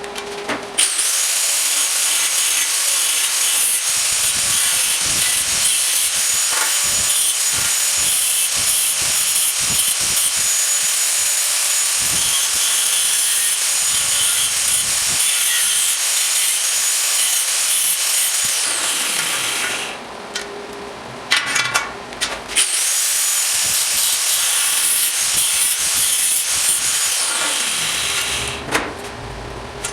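Electric power tool running on metal in two long runs with a steady high whine. The first run lasts about eighteen seconds; it stops for about three seconds, with a few knocks in between, then runs again for about five seconds.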